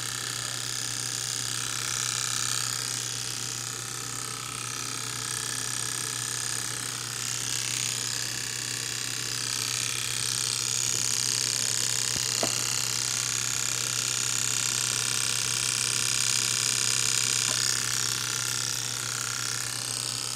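Constant odd clicking noise from the passenger side of a BMW X5M's S63 twin-turbo V8 engine bay just after a hard-driven shutdown, in place of the electric engine fan that would normally run, over a steady low hum. The owner wonders if an injector is still firing.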